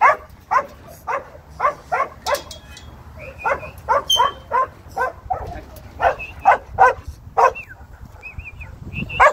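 Working kelpie barking repeatedly while pushing sheep through steel yards: short, sharp barks coming one to two a second in irregular runs, pausing for about a second and a half near the end before one more bark.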